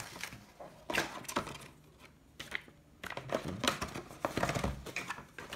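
Cardboard packaging and a paper leaflet being handled: short taps, scrapes and rustles, scattered at first and busier in the second half as the inner carton's flap is pulled open.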